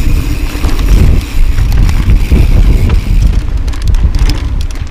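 Wind buffeting the microphone and a 2013 Tallboy LTc mountain bike rolling fast downhill over dirt and rock, a loud steady rumble with sharp clicks and rattles that come thicker in the second half.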